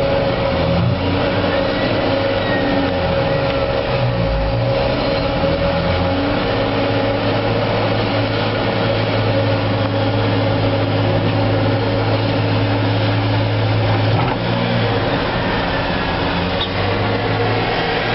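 Heavy diesel engines of an articulated dump truck and a Volvo tracked excavator working under load to drag the truck out of a flooded pit. The low engine note holds steady through the middle and changes about fourteen seconds in as the truck climbs out.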